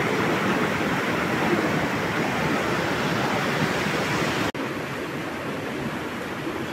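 Steady rush of falling water. About four and a half seconds in it breaks off for an instant and carries on a little quieter.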